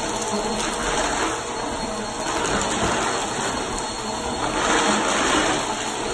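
Upright bagless vacuum cleaner running on carpet, a steady motor noise that swells and eases a little as it is pushed back and forth.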